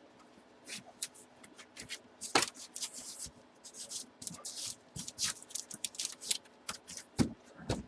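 Trading cards being handled by hand: irregular rustling and light clicks, with a couple of sharper snaps, one about two and a half seconds in and one near the end.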